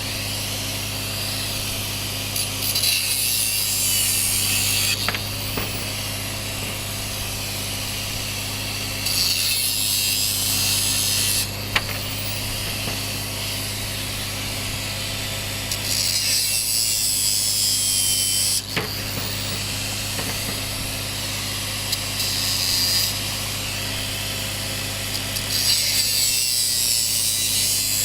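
Angle grinder cutting scrap copper pipe in about five bursts of two to three seconds each, with sharp clicks between cuts and a steady low hum underneath.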